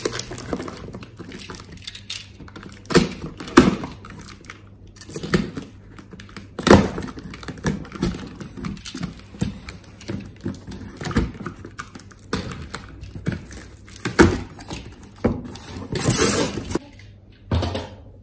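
A cardboard box being cut open with a utility knife and handled: irregular scrapes, knocks and cardboard rustles, with a longer rustle near the end as the flaps come apart.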